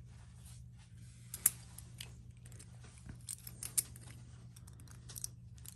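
Metal Fight Beyblade parts (metal wheel, plastic clear wheel and small pieces) clicking and tapping against each other as they are handled and fitted together, with one sharp click about a second and a half in and a quick run of clicks in the second half. A faint steady hum underneath.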